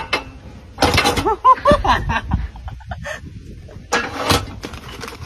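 Knocks and clunks from the hand-turned handle of a food-chute feeder set in an enclosure's glass front, with a quick run of short rising-and-falling voice-like calls about a second in and another sharp knock about four seconds in.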